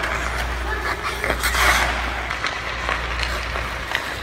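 Ice hockey skate blades carving and scraping on rink ice, with a louder scrape about one and a half seconds in and scattered sharp clicks, over a steady low rumble.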